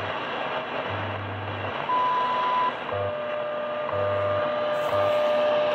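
WWV time signal on 10 MHz shortwave, heard through an Eton S350DL portable receiver's speaker over static hiss. A low 100 Hz time-code hum pulses on and off; about two seconds in comes a longer high beep, the 1000 Hz top-of-minute tone. From about three seconds a steady lower tone runs on, broken briefly once a second by the second ticks.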